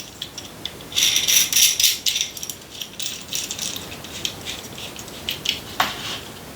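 Metal parts of a small hand-made vise clicking and rattling as it is opened up and an object is fitted into it. There is a dense run of light metallic clicks about a second in, then scattered clicks and a single sharper knock near the end.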